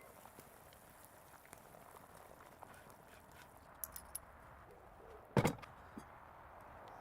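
One short, sharp knock about five seconds in, preceded by a few light clicks, over a faint steady background.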